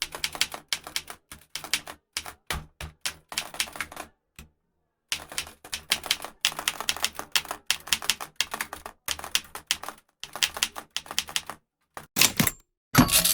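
Old manual typewriter being typed on: fast runs of key strikes clacking against the platen, broken by short pauses. A few heavier strokes come near the end, and the carriage bell dings at the very end.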